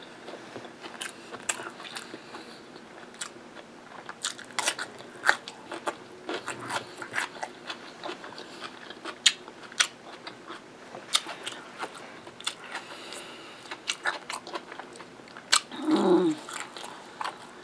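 Close-miked eating: crisp crunching bites into a raw green pepper and wet chewing, with many sharp mouth clicks. Near the end comes a brief hum from the eater, falling in pitch, while she bites meat off the bone.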